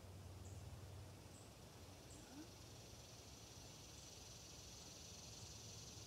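Quiet woodland ambience: a faint, steady, high-pitched insect drone that grows a little stronger after about two seconds, with a couple of short high chirps in the first two seconds.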